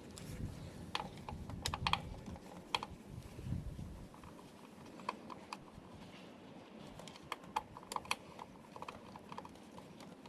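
Irregular light clicks and taps, a few a second at most, from small hard objects being handled, over a low rumble that fades out about four seconds in.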